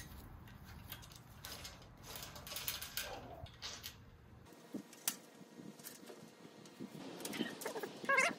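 Scattered light metal clicks and handling noises as a hex key works the bolt of a one-bolt seatpost saddle clamp to loosen it. Near the end a dog whines briefly.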